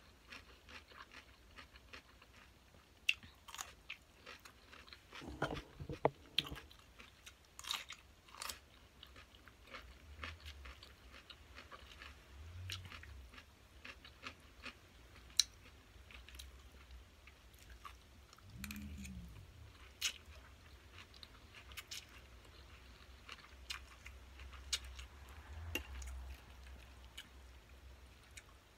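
Close-up eating sounds of a person chewing a glass noodle salad with crunchy cucumber, with scattered sharp clicks of a spoon and fork against the bowl. A short low hum comes about two-thirds of the way through.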